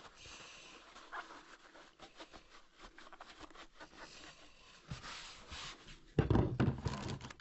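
Metal furnace parts and tools being handled: scattered light clicks and rustling, then a louder stretch of scraping and rattling about six seconds in.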